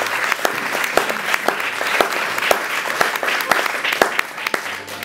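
Audience applauding: dense, steady clapping with many sharp single claps standing out.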